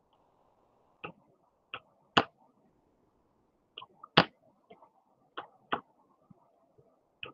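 About ten sharp clicks and knocks at irregular intervals, the loudest about two and four seconds in, over a faint hiss.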